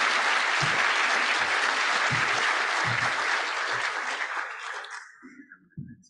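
Audience applauding, which dies away about five seconds in.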